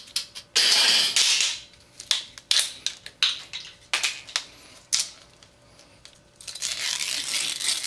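Window screen mesh being pried and pulled out of its frame: short scrapes and clicks, with a longer rasping scrape about a second in and another near the end.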